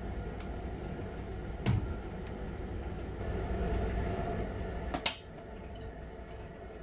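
Miele Novotronic W921 washing machine running with a steady low hum, with a single knock a little under two seconds in. About five seconds in there are two sharp clicks, and the hum drops away.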